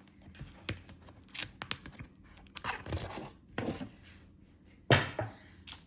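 Paper goods and their packaging being handled: scattered rustles, swishes and light taps, with one louder rustle about five seconds in.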